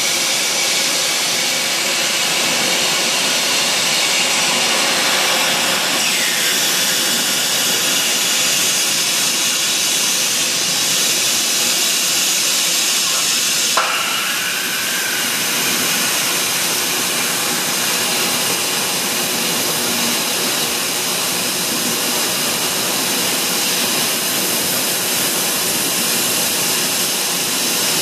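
Steady loud hiss and rush of machinery in a large factory hall, with a single sharp knock about halfway through.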